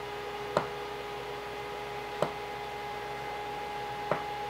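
Pizza cutter wheel knocking on a wooden cutting board three times as it cuts dough into small squares. Under it runs a steady hum from an air fryer working in the background.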